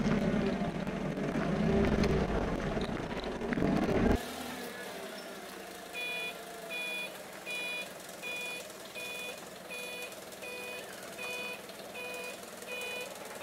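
Loud low rumble of a forklift engine running close by for the first few seconds. Then a Toyota forklift's reversing alarm beeps steadily, about ten beeps at a little more than one a second, over the quieter hum of its engine as it moves with the lathe on its forks.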